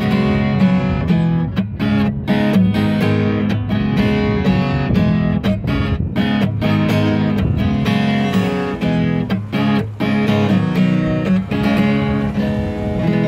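Acoustic guitar strummed in a steady rhythm with no singing: the instrumental outro of a song.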